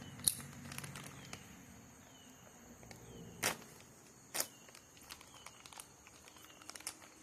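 A few sharp clicks and taps of a bolt being handled and fitted into a motor adapter plate. A steady high insect buzz and faint short chirps, repeating about once a second, run behind them.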